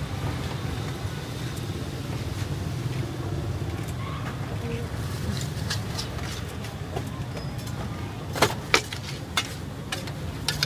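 Metal spatula scraping and stirring food in a steel wok, with a few sharp clanks of metal on the pan near the end, over a steady low rumble.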